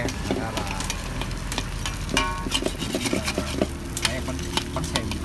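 Bánh xèo batter frying in hot pork fat in a wide aluminium pan, with a metal spatula scraping and clicking against the pan many times.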